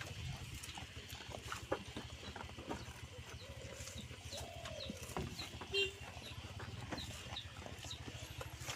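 Farmyard animal sounds: chickens clucking, with short high chirps repeating throughout and one drawn-out call about halfway through, over a steady low hum.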